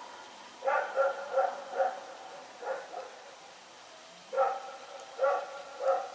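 Belgian Malinois barking: a quick run of four barks about a second in, a single bark, a pause, then three more barks.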